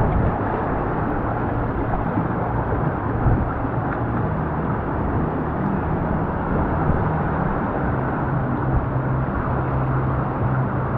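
Steady rush of water along a rapids-ride channel around a raft tube, heard as a muffled, low rumbling wash with no sharp splashes standing out.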